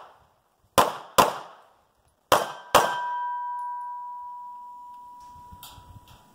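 Two quick pairs of pistol shots about a second and a half apart. After the last shot a struck steel target rings with a clear tone that slowly fades over about three seconds.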